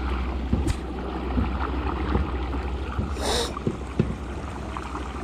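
Fishing kayak under way on calm water: a steady low rumble with a light hiss over it and scattered soft knocks, and a short hiss about three seconds in.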